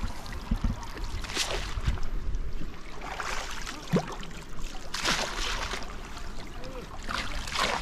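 Shallow water splashing and sloshing as a wading person works their hands through flooded grass. There are about four separate splashes over a steady low rumble, with a few soft knocks in between.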